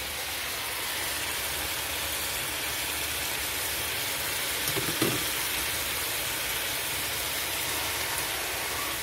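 Marinated chicken breasts sizzling steadily in a grill pan, with one short knock about five seconds in.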